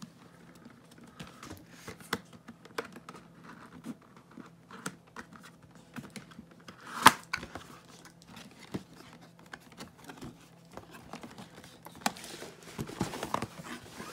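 Cardboard packaging being handled: scattered taps, scrapes and rustles as the flaps of a box are opened and an inner box is slid out, with one sharp, louder click about halfway through.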